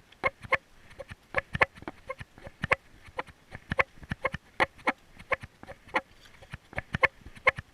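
A run of sharp, irregular popping clicks from a pet animal, about three a second.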